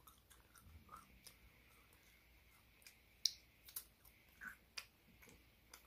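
Faint, scattered mouth clicks and smacks of chewing fried pork chop. The sharpest click comes about three seconds in, and a few more follow over the next two seconds.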